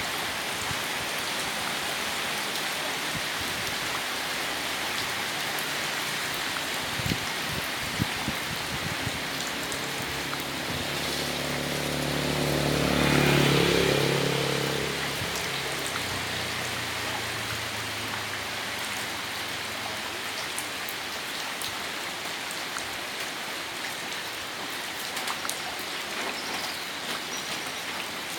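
Steady rain falling, with a motor vehicle's engine passing by in the middle, growing louder to a peak about halfway through and then fading away.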